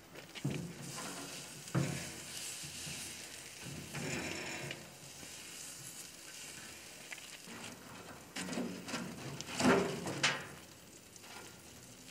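Beef roast sizzling on the steel mesh grate of a wood-fired Santa Maria grill while it is turned with tongs, with scrapes and knocks of the tongs and meat on the grate; the loudest knocks come twice around ten seconds in.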